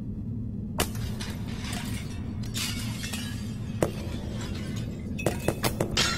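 Sharp crashing impacts with a shattering ring over music with a steady low drone. There is one about a second in and another near four seconds, then a quick run of four or five near the end.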